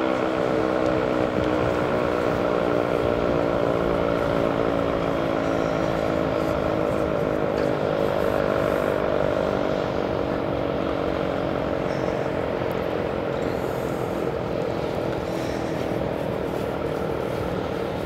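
ACA Banshee outdoor warning siren sounding its test signal, a steady chord-like tone whose pitch sags slightly; about ten seconds in the tone turns rougher and a little quieter.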